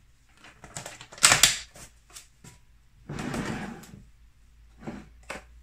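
Kitchen containers and a plastic package handled on a countertop: scattered clicks and knocks, a sharper knock just over a second in, and about a second of rustling starting about three seconds in.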